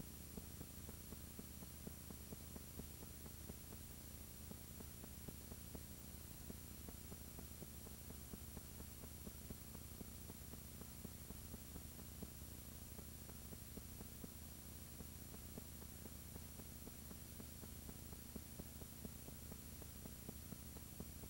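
Faint, steady electrical hum with hiss and light crackle, and no music or speech: the recording's background noise.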